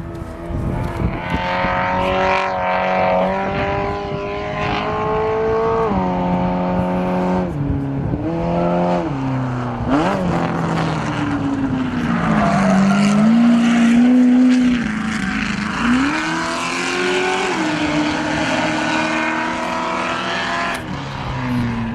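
Race pickup truck's engine revving hard up the hill. Its pitch climbs in steps through the first six seconds, then falls and rises again several times as it shifts and lifts off. A rushing noise builds in the second half.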